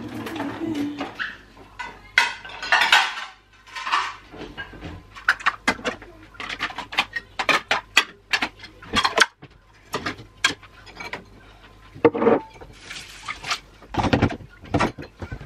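Dishes clinking and knocking as a dishwasher is unloaded: mugs and plates lifted out and set down, in many separate sharp clinks.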